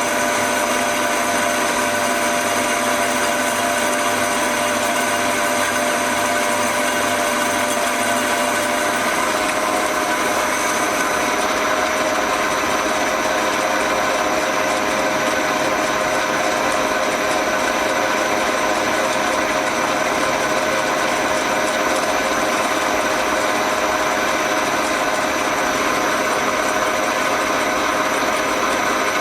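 Progres 380 metal lathe running under power and turning a steel plate, a steady gear whine with the hiss of the cut. The sound changes slightly about nine seconds in.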